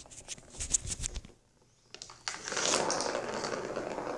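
A few light clicks and taps, then from about two seconds in a steady, fast rolling rattle: a ball running round the plastic track of a circular cat scratcher toy.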